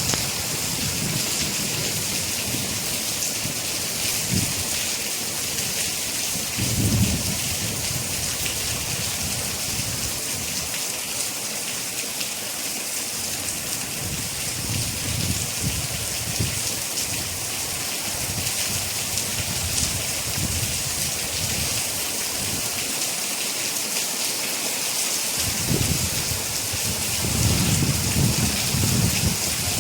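Steady rain falling, an even hiss, with low rumbles of thunder that swell and fade several times, the strongest about seven seconds in and over the last few seconds.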